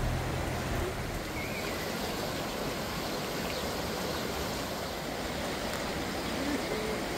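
A flooded river rushing past in a fast current, making a steady, even noise of water.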